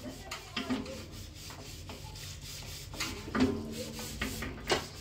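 Large aluminium cooking pots being scrubbed by hand, a rough rubbing and scouring on the metal, with a few light clanks of the pots that ring briefly, about a second in and again past the middle.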